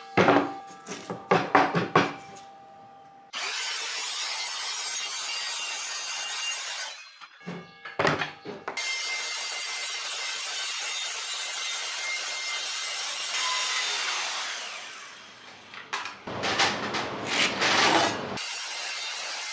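Evolution R185 circular saw running steadily through plywood in two stretches, the second fading out about fifteen seconds in. Between them come bursts of knocking and clatter from boards being handled: at the start, around eight seconds and near the end.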